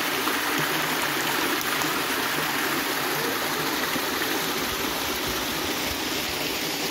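Water running steadily along a concrete irrigation channel, a constant rushing flow.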